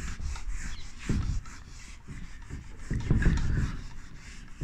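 Soft rubbing and scratching of handwriting, uneven, with a couple of louder swells.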